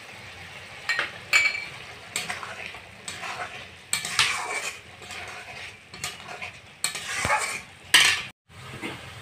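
Long steel spatula stirring and scraping fried potato chunks and chopped tomato in spice paste around a metal kadai, with some sizzling as the masala is sautéed (kosha). The strokes come irregularly, each a short scrape or clink against the pan, and the sound breaks off abruptly near the end.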